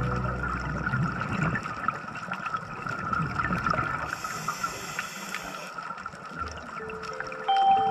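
Underwater ambience picked up by a diver's camera: a steady watery hiss peppered with small crackling ticks, with a brighter stretch of hissing between about four and six seconds in. Music with held notes fades out at the start and comes back in near the end.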